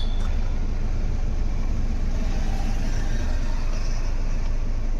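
Ford EcoSport engine idling steadily while the steering wheel is turned, with no knocking from the steering column: the loud 'dubuk dubuk' knock is cured after the column repair.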